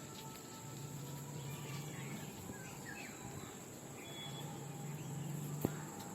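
Outdoor ambience: a steady hiss and a high thin whine, with a few faint short bird chirps. A single sharp click comes near the end.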